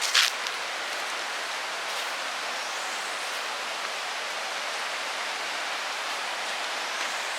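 Waterfall rushing in a steady, even roar of falling water. A brief, sharp noise sounds just after the start.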